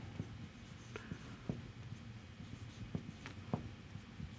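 Marker pen writing on a whiteboard: faint, scattered short taps and squeaks as letters are written.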